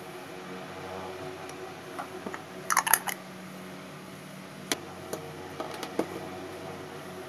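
Metal tweezers clinking against a glass jar and a small steel bowl: a quick cluster of ringing clinks about three seconds in, then a few lighter taps and clicks. A steady low hum runs underneath.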